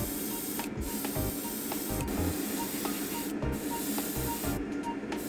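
Airbrush spraying a thin coat of Gunze Mr. Color GX103 clear blue at low air pressure: a steady hiss of air and paint. The hiss breaks off briefly a few times, about a second in, around three seconds in and near the end.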